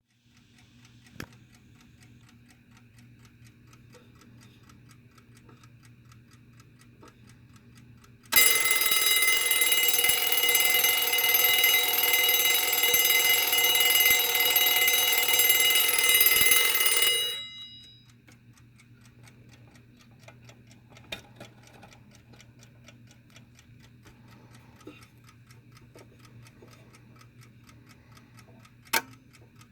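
Early model 1 'peg leg' Westclox Big Ben wind-up alarm clock ticking softly, then its bell alarm rings loud and continuously for about nine seconds before it stops and the bell dies away, leaving the ticking. A sharp click comes about a second in and another near the end.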